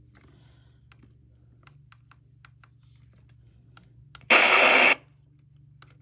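A loud burst of hiss-like radio noise from a weather radio receiver, lasting about two-thirds of a second and cutting off abruptly, among faint scattered clicks.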